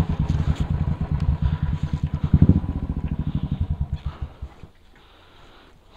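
Motorcycle engine running at idle with a rapid, even beat of firing pulses and a brief blip of throttle about halfway, then falling silent after about four seconds as the engine is switched off.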